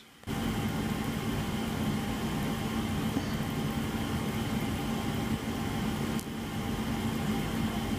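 Steady machine hum and whir with a few constant tones in it, briefly dipping with a faint click about six seconds in.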